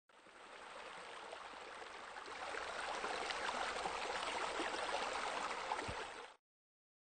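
Running, splashing water with a fine, crackly texture. It swells up over the first couple of seconds, holds steady, then cuts off suddenly near the end.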